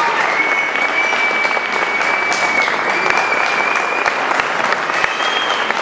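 A theatre audience applauding steadily, dense clapping throughout. A long high whistle is held over the applause for about four seconds, and a shorter, higher one sounds near the end.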